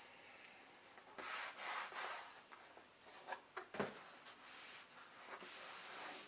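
Paperboard rubbing and sliding as the snug lid of a MacBook Pro retail box is drawn off and the box is handled, with a few light clicks and a knock near the middle as the lid is set down. Faint overall.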